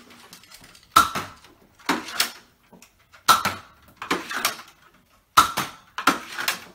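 Toy foam-dart blaster being primed and fired over and over: a string of sharp plastic clacks, about one a second, some coming in quick pairs.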